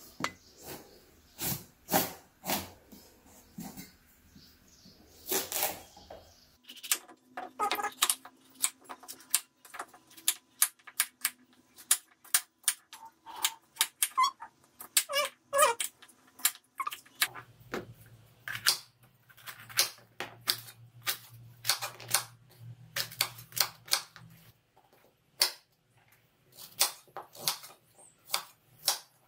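Kitchen knife chopping pumpkin and carrot on a wooden cutting board: irregular sharp knocks of the blade striking the board, some in quick runs.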